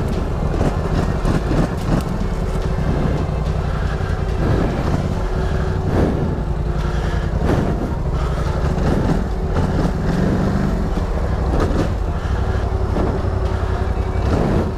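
Polaris Scrambler 1000XP ATV's twin-cylinder engine running steadily at low revs while crawling over rough ground, with irregular knocks every second or two as the quad bumps along.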